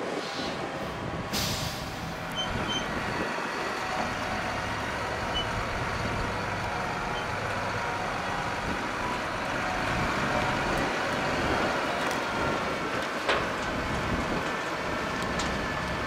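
Heavy farm machinery running steadily: tractor diesel engines and a crane-fed wood chipper working together in a dense, continuous rumble. There is a short hiss about a second and a half in and a single sharp knock later on.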